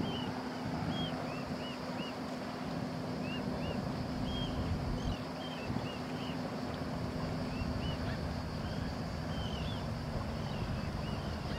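Airbus A320 jet engines idling while the airliner holds on the runway: a steady low hum with wind rumble on the microphone. Short high chirps repeat throughout.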